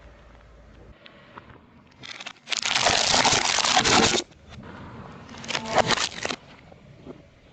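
A car tyre rolls over and crushes crunchy objects with a crackling crunch. A long burst comes a couple of seconds in, and a shorter one follows about two seconds later.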